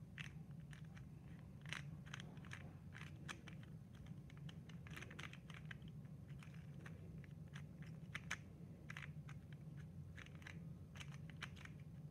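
Budget plastic Square-1 puzzle being turned by hand: faint, irregular quick clicks and clacks of its layers as they are twisted.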